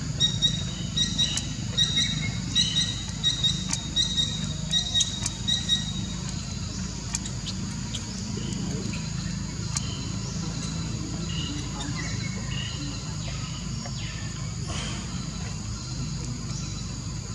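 A run of short, high-pitched animal chirps, about two a second for the first six seconds, then only scattered chirps, over a steady low hum.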